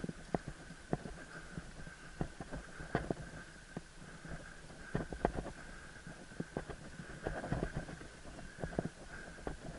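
Mountain bike rattling and clacking as it rides over a bumpy dirt singletrack, with irregular sharp knocks from the jolts over a low rumble of tyres on the ground. A faint steady high tone sits under it throughout.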